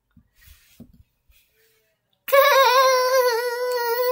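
A child's high voice letting out one long, drawn-out, wavering wail without words, starting a little over two seconds in and lasting about three seconds. It is preceded by a few faint soft knocks.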